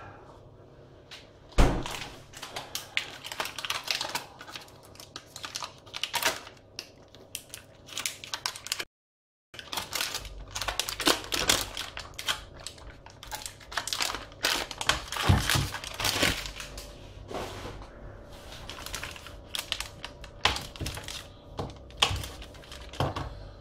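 Irregular clicks, knocks and crinkling from hands handling things at a kitchen counter. The sound cuts out completely for about half a second near the middle.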